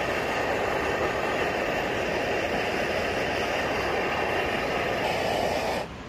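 A steady rushing noise with no distinct tones, cutting off suddenly to a much softer hiss just before the end.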